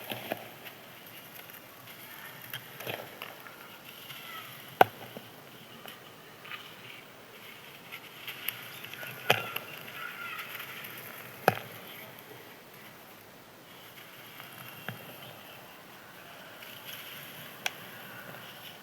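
Crispy dried sand crumbling and being crushed, a soft continuous crackle broken by four sharp cracks, the loudest about a third of the way in.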